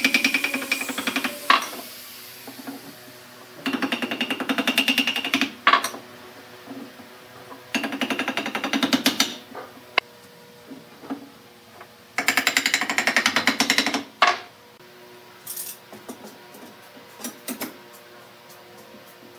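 Cordless impact driver driving screws through pine seat slats into the chair's log frame: four separate bursts of rapid hammering, each a second and a half to two seconds long, with small wooden knocks between them and near the end.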